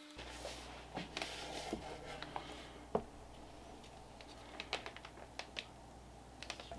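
Gloved hands setting a wooden cutting board into a plastic tub of mineral oil and pressing it down: scattered small clicks and knocks of wood against plastic with soft squishing, the sharpest knock about three seconds in, over a low hum.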